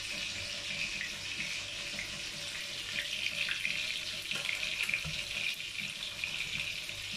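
Kitchen tap running with a steady rush of water.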